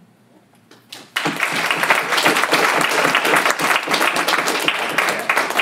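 Audience applauding: a few scattered claps, then many people clapping together from about a second in.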